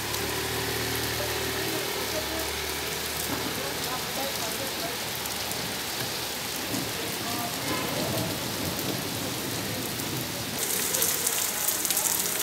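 Heavy rain pouring onto a wet road, a steady hiss throughout. A motor scooter's engine hums as it passes in the first couple of seconds. Near the end the rain turns louder and crisper, with sharp drops pattering close by.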